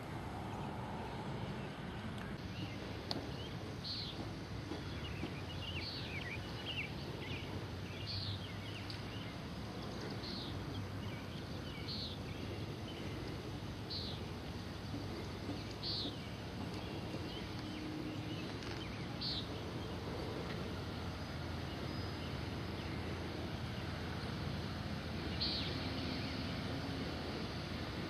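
Outdoor ambience: a steady low background rumble with a bird calling over it, a short high chirp repeated about every two seconds, and a few looser chirps a few seconds in.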